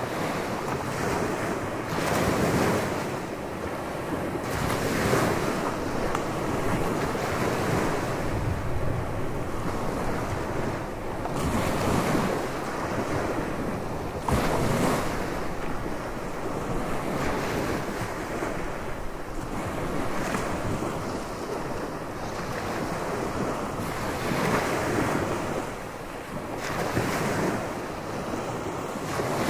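Surf breaking on a beach, waves surging in and easing every few seconds, with wind buffeting the microphone.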